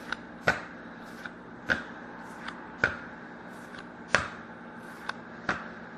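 Trading cards from a freshly opened pack being flipped through one at a time, each card landing with a sharp tap, about one every second and a bit, with lighter ticks in between.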